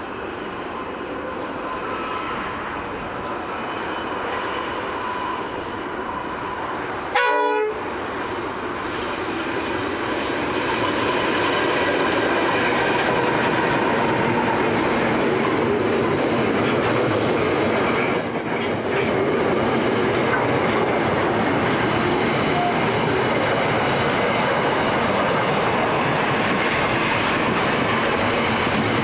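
Freight train of steel wagons and container platforms rolling past, a steady rumble and clatter of wheels on rail that swells about ten seconds in and then holds level. A brief break in the sound about seven seconds in.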